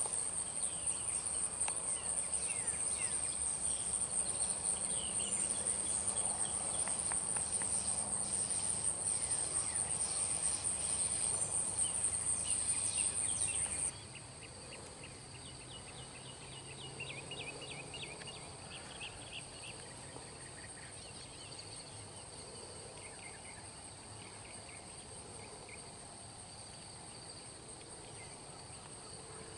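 Steady, shrill insect chorus, loud until it drops off abruptly about halfway through. After that fainter insect drone continues, with a few short runs of chirps.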